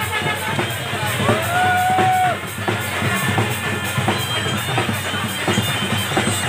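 Traditional drums beaten fast and continuously amid a noisy crowd. About a second in, a high held note rises and holds for about a second over the drumming.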